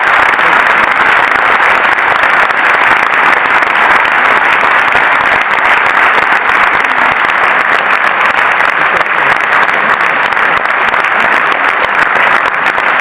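Theatre audience applauding steadily, a dense sustained clapping of many hands.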